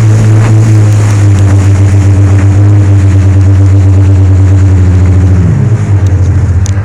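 Personal watercraft engine running hard at high revs, with a steady mechanical note over rushing water. About five and a half seconds in the throttle comes off and the engine note falls.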